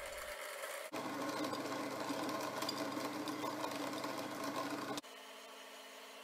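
Electric countertop blender running steadily as it blends a smoothie. The motor sound changes abruptly about a second in, and again near the end to a quieter, lower hum.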